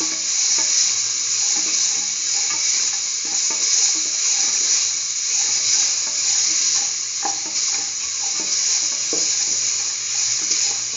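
Chayote, green peas and onions sizzling in hot oil in a steel pressure-cooker pan, a steady hiss, while a spoon stirs them and knocks against the metal now and then.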